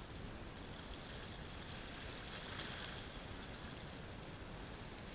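Small waves lapping and trickling against breakwall rocks, a faint steady wash of water.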